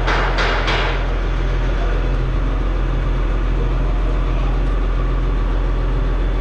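Truck engine idling steadily, with three quick sharp knocks in the first second.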